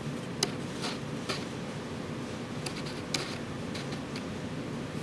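Small sharp clicks and taps from handling the opened Samsung Galaxy S2's plastic and metal parts, three in quick succession near the start and three more around the middle, over a steady low hum.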